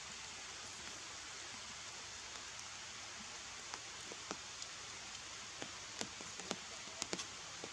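Steady hiss of outdoor forest ambience, with scattered faint ticks and clicks that come more often in the second half.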